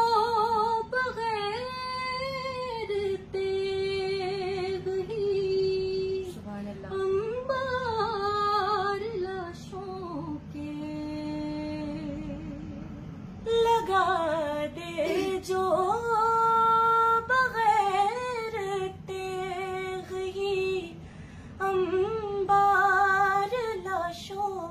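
Women's voices singing an unaccompanied devotional Urdu song (a manqabat in praise of Abbas), with long held notes and ornamented runs. The singing drops to a quieter, lower held note about halfway through, then comes back strongly.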